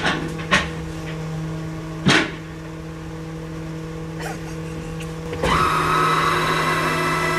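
Steady low hum of the car-transporter truck's running machinery, with a few sharp knocks, heard from inside a car in the trailer. About five and a half seconds in, a motor starts with a quick rising whine and settles into a louder, steady higher-pitched run.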